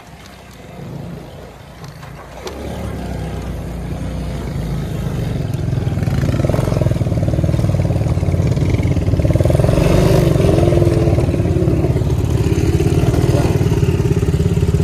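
Four-wheeler (ATV) engine running, getting louder over the first several seconds and then holding steady.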